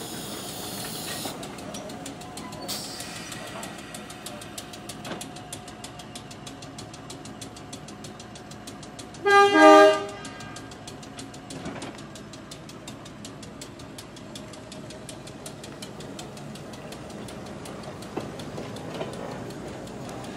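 Chicago Aurora and Elgin electric interurban car 409 rolling slowly past, its wheels clicking steadily over the rail joints. A little over nine seconds in, a train horn gives two quick toots, the loudest sound.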